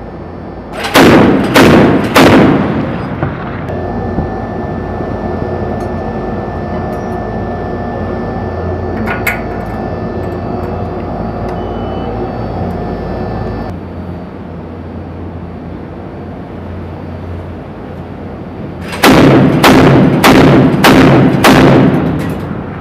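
MK 38 25 mm deck gun firing single rounds in two strings: three sharp shots about a second in, then about six more, roughly two a second, near the end. Between the strings there is a steady low hum.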